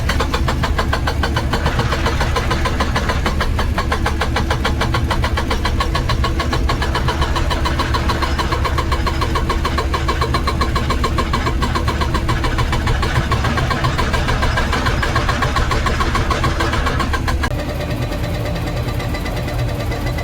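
Excavator-mounted hydraulic breaker hammering rapidly and steadily against rock and hard soil over the excavator's running diesel engine. The hammering stops about three-quarters of the way through, leaving the engine running.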